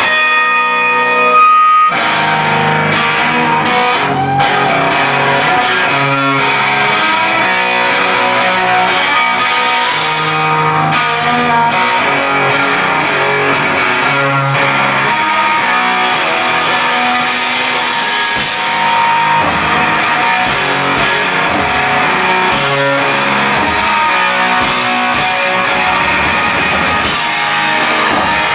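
Live rock band playing loud and steady: electric guitar over a drum kit.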